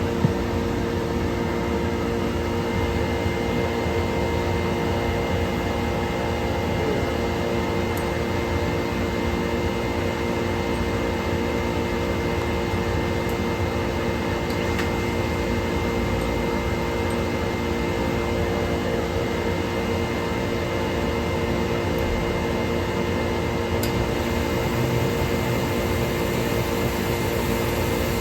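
Air compressor running with a steady machine hum holding several steady tones. Near the end a high hiss of air blowing out of the timed solenoid drain joins in: the automatic blowdown cycling as it should now that the leaking fittings are fixed.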